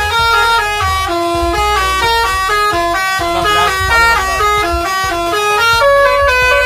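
Bus 'telolet' multi-tone air horn playing a fast stepping melody of loud horn notes, with a low rumble underneath.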